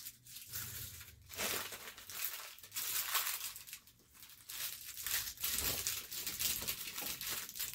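Clear plastic packaging crinkling and rustling as it is handled, in irregular crackles with a short lull about four seconds in.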